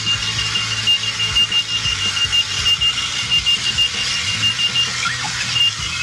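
Clocky wheeled alarm clock going off, beeping rapidly on one high pitch while it rolls away across the floor so that it has to be chased to be switched off. The beeping stops about five seconds in, with one short beep near the end.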